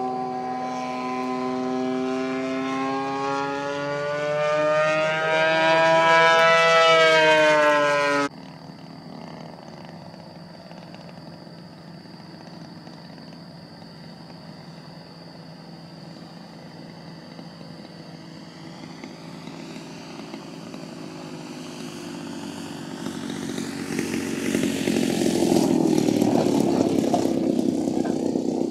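DLE 55cc single-cylinder two-stroke gas engine of a giant-scale RC aerobatic plane in flight, its pitch rising and falling as the plane manoeuvres and passes. The sound cuts off suddenly about eight seconds in and returns much fainter at low throttle, then grows loud again near the end as the plane lands and rolls across the grass close by.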